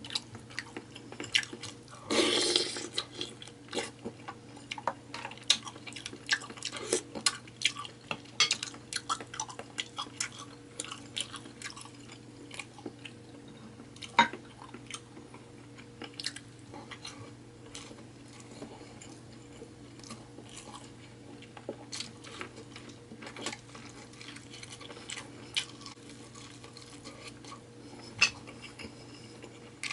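Close-miked eating of a seafood boil: wet chewing and sauce-slick smacking, with many short clicks and cracks from shells and utensils. A louder, noisy crunch or slurp comes about two seconds in. A steady low hum runs underneath.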